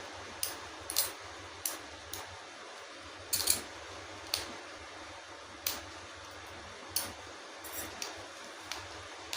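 Plastic segments of a Rubik's Snake twist puzzle being turned by hand, giving short sharp clicks about once a second, irregularly spaced, over a low steady hum.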